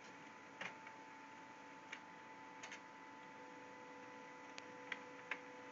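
Multifunction printer running faintly: a steady whine of several held tones, with about seven light clicks at irregular intervals.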